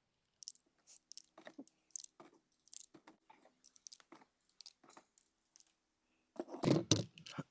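9mm cartridges being pressed one by one into a Ruger LC9's seven-round magazine: a string of short metallic clicks every third to half second, with a louder handling clatter near the end.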